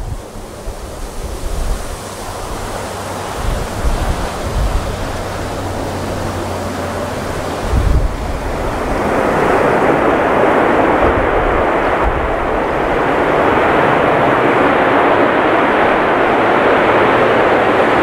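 Airbus A330 jet engines on the landing roll after touchdown, a steady noise that swells about halfway through and stays loud. In the first seconds, gusts of wind thump on the microphone.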